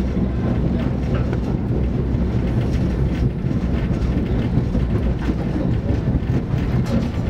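Passenger train rolling along at speed: a steady low rumble of wheels on the rails, heard from inside the coach, with faint clicks through it.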